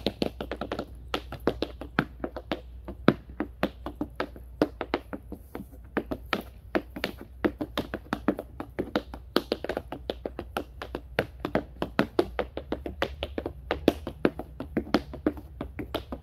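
Tap shoes' metal taps striking a thin wooden board laid on the ground: sharp clicks in quick, shifting rhythms, several a second, with short flurries and accents.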